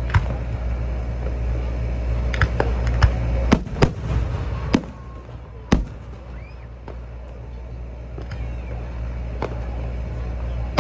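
Aerial fireworks shells bursting overhead: a run of sharp bangs, most of them close together between about two and six seconds in, with a few more scattered before and after.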